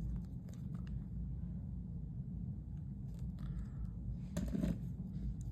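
Faint small clicks and taps of clock parts being handled, over a steady low hum.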